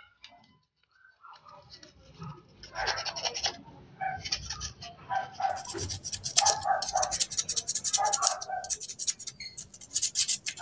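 Sandpaper rubbed in quick back-and-forth strokes on a metal gas-stove valve part. It comes in several bursts with short pauses, starting about two seconds in.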